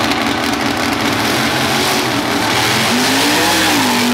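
Two drag racing cars, a funny car and a gasser-style coupe, launching from the start line and accelerating hard side by side. Their engines are loud and dense throughout.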